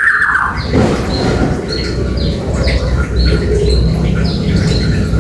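Cucak pantai calling: a loud, harsh, slightly falling call in the first moment, then a run of short, high, downward-sliding notes and brief whistled tones repeating about once or twice a second. A steady low rumble runs underneath.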